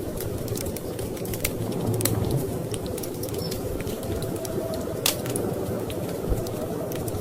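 Wood fire crackling in a fireplace, with scattered sharp pops, the loudest about two and five seconds in, over a steady low rumble.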